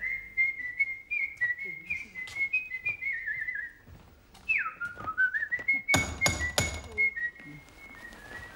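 A man whistling a tune with trills and slides. Light footsteps sound under it, and about six seconds in come a few loud knocks on a door.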